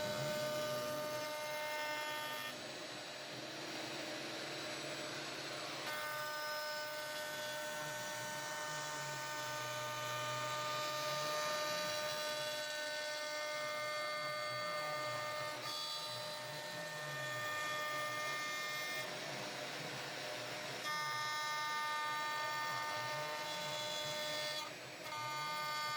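CNC router milling a relief carving in cherry wood. A steady high-pitched whine of several notes drops out and returns several times, under a lower whine that keeps rising and falling in pitch as the machine moves through the cut.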